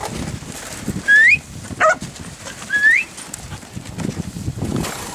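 Two loud rising whistle-like calls, about a second and a half apart, with a short dog bark between them, over faint shuffling of sheep in the yard.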